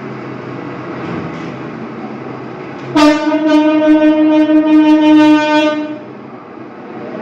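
A truck engine runs steadily. About three seconds in, a vehicle horn gives one loud, steady blast lasting about three seconds.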